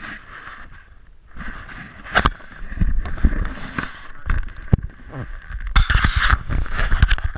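Canoe being paddled: paddle blades splashing in the water and knocking against the hull, with a steady watery hiss. There are close bumps and rubbing from the camera being handled.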